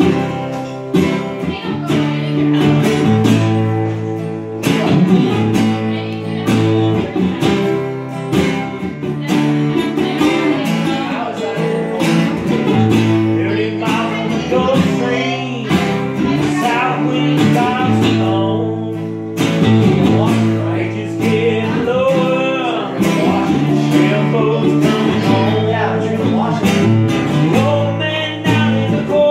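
Two acoustic guitars strummed and picked together in a steady rhythm, working through a country-rock song.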